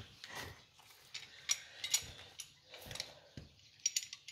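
A Lister three-cylinder air-cooled diesel engine being turned over slowly by hand with the starting crank, giving irregular metallic clicks and ticks that come faster near the end. The engine has just been freed from seizure and still turns a little tight.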